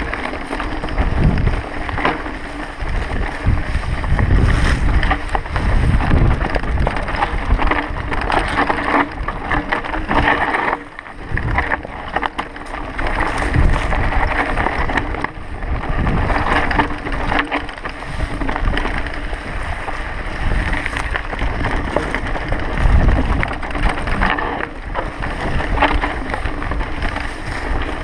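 Mountain bike riding fast down a rough dirt and rock singletrack: wind rushing over the microphone, with the tyres rolling over stones and the bike rattling and knocking over bumps.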